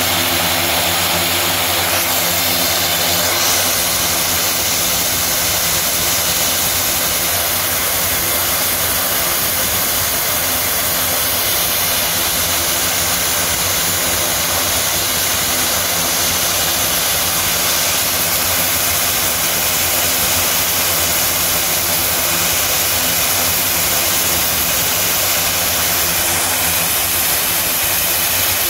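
Twin Garrett T76 turboprop engines of an OV-10D+ Bronco running on the ground with both propellers turning, a steady, unchanging engine noise, during an engine trim run.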